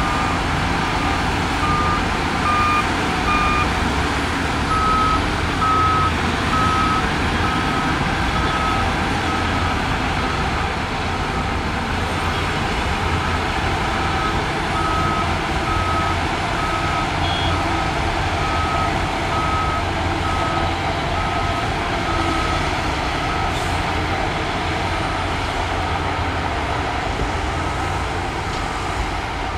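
Backup alarm of heavy earthmoving machinery beeping steadily, about one beep a second, over the steady low rumble of a diesel engine.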